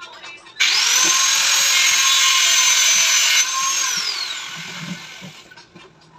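Electric drill motor spinning up suddenly to a high, steady whine, running free for about three seconds, then released and winding down with a falling pitch.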